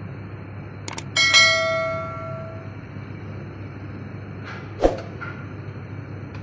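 A metal object struck once, giving a bell-like clang that rings for about a second and a half, just after a couple of sharp clicks. A single knock follows near the end, over a steady low hum.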